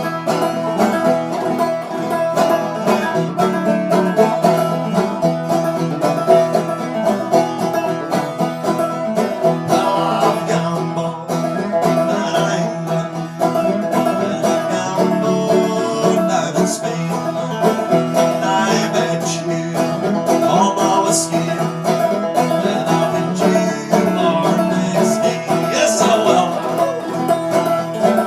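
Solo banjo playing an instrumental passage of a traditional old-time tune: a steady run of plucked notes over a ringing drone note, without singing.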